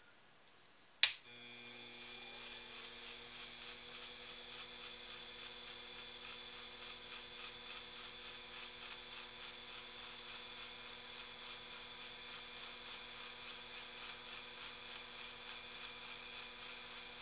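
Small bench lathe switched on with a sharp click about a second in. Its electric motor spins up over a second or two, then runs steadily with a hum and a high whine.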